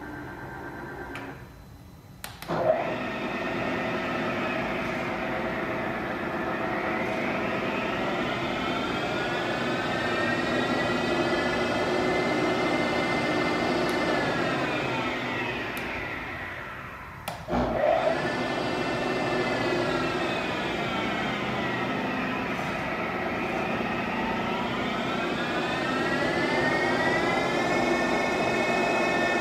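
Clausing Kondia FV-300 mill's spindle running on its variable-speed drive, a machine whine that slides up and down in pitch as the speed is changed. It dies away about two seconds in and starts again with a click, then stops and restarts the same way about halfway through.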